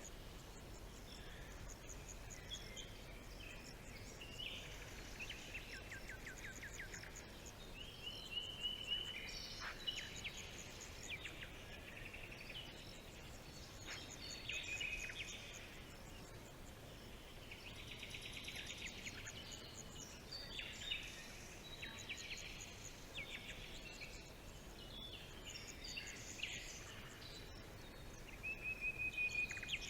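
Several songbirds singing and calling in a forest: repeated chirps, fast trills and short whistled phrases from different birds, over a faint steady background hiss.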